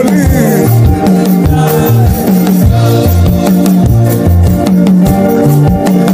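Upbeat worship music with drums, shakers and a moving bass line playing a steady beat.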